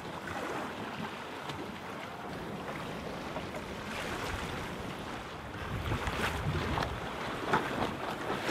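Sea water rushing and splashing along the hull of a sailboat underway, with wind buffeting the microphone; the wind rumble grows heavier about six seconds in.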